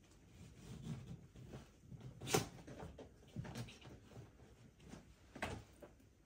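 Quiet small-room sound with faint rustling and a few soft clicks, the sharpest about two and a half seconds in and another about five and a half seconds in.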